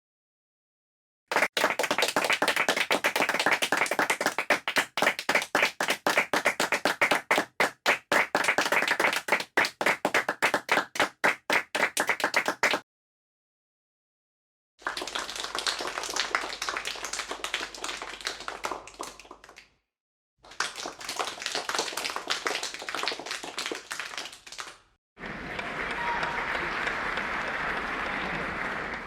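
Applause sound effects played one after another with short silent gaps. The first is a long stretch of clapping whose separate claps thin out before stopping just under halfway through. Three shorter bursts of steadier applause follow.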